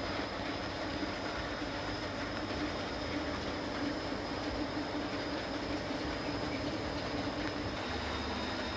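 Small electric motor of a bead-turning spindle running steadily: a constant hum with a thin high whine above it.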